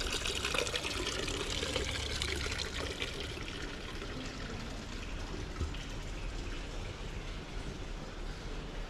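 Running water trickling steadily, a little louder for the first few seconds.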